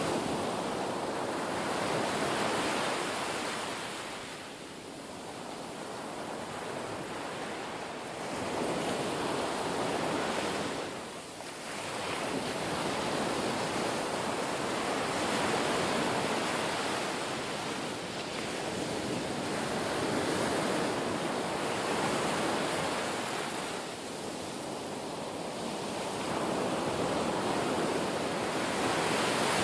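Ocean waves surging and washing in, a steady rush that swells and fades in slow waves over several seconds.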